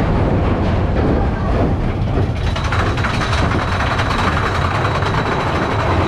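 Mine-train roller coaster cars running along the track with a steady low rumble and rattle. A thin, steady high whine joins about two seconds in and fades near the end.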